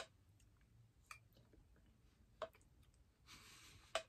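Faint eating sounds: a few soft, separate clicks of a spoon and mouth while eating yogurt parfait from a plastic cup, with a brief soft hiss just before the last click near the end.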